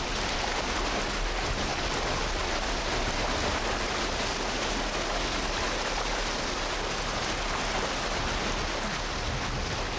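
Heavy rain and water pouring down into floodwater: a steady, even rush with no breaks.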